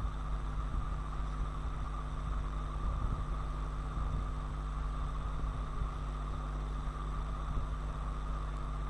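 Steady low hum with a constant hiss, unchanging throughout: background noise of the recording after the talk has ended.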